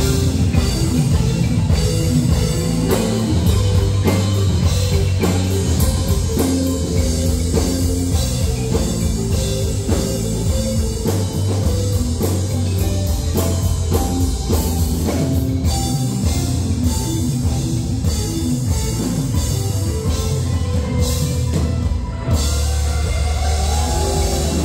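Live band playing an instrumental passage with a steady rock beat on a drum kit, with guitar and a kolintang (Minahasan wooden xylophone) played with mallets.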